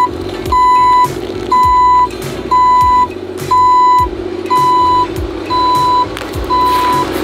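Backup alarm of a Hamm HD 12 tandem road roller, beeping at one steady pitch about once a second, each beep about half a second long, over the machine's steadily running diesel engine.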